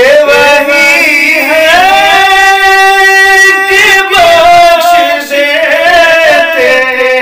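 Urdu devotional naat sung in long, drawn-out ornamented notes, the voice bending and wavering in pitch.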